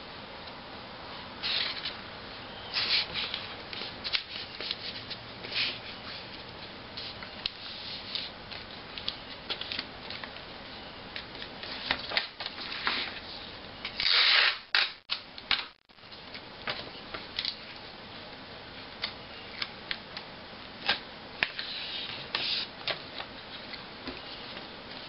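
Paper being handled by hand, folded, creased and smoothed flat as a new surface layer is laid on a paper airplane: scattered rustles and crisp crinkles, with a louder burst of rustling about halfway through.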